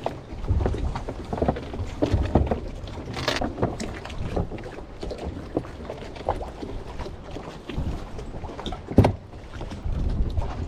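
Water sloshing against a small wooden boat's hull, with wind on the microphone and irregular knocks and clicks on board; one sharper knock about nine seconds in.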